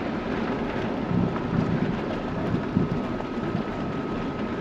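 Fiat Ducato-based motorhome driving slowly, a steady low rumble of engine and road noise heard from inside the cab, with a faint steady whine above it.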